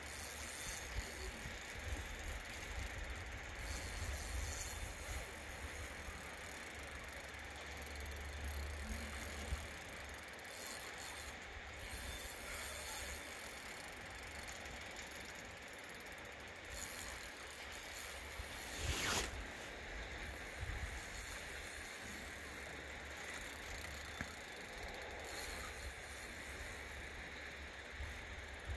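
Fishing reel ratcheting as the angler plays a hooked steelhead, line reeled in and pulled against the drag, over a steady hiss and a low rumble. One sharp knock about nineteen seconds in.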